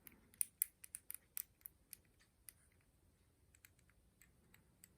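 Light metallic clicks and taps from handling a Zippo lighter and its small parts: a quick flurry in the first two seconds or so, then a few scattered clicks.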